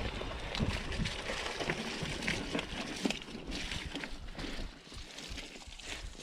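Mountain bike rolling down a rough dirt trail: tyre rumble with scattered clicks and knocks as the bike rattles over roots and rocks, easing off a little near the end.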